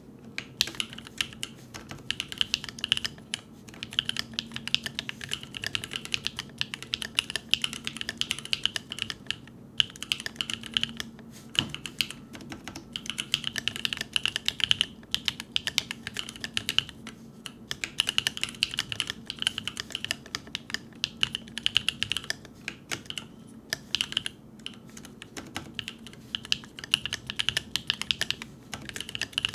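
Typing on a Keebio Quefrency Rev.2, a split 65% mechanical keyboard: a fast, continuous stream of key clacks, broken by a few short pauses.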